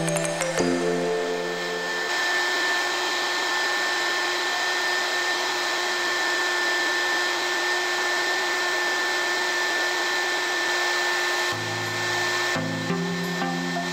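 Small 300 W hot air gun blowing steadily: a rush of air with a steady fan whine. Upbeat background music plays over the first couple of seconds and comes back about 11 seconds in.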